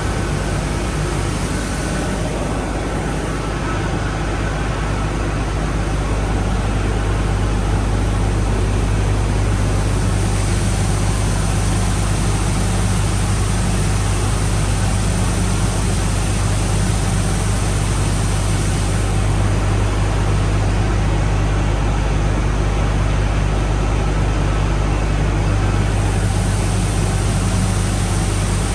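Power-plant circulating-water system humming steadily under its filters: a loud, constant machine and water-flow drone with a strong low hum and a hiss over it.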